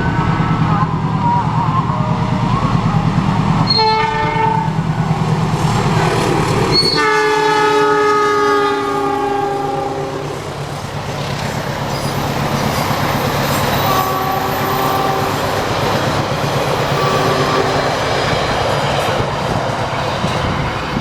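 Passing train sounding its horn several times: a short blast about four seconds in, a long blast around seven seconds in that drifts slightly lower in pitch, and two more blasts later on, over the steady rumble of the train and the clack of its wheels.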